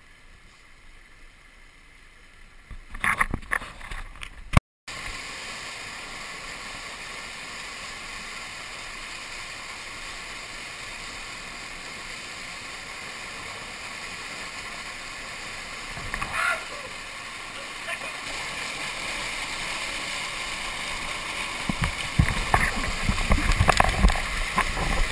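Rushing water of a canyon stream cascade, a steady rush that starts after a cut about five seconds in and grows a little louder. A few splashes before the cut and low knocks near the end.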